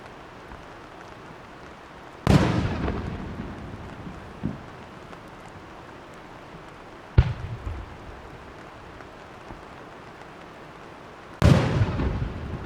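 Aerial firework shells bursting: three sudden loud bangs about two, seven and eleven seconds in, each trailing off in a rumble and crackle, with a fainter echoing thump after the first.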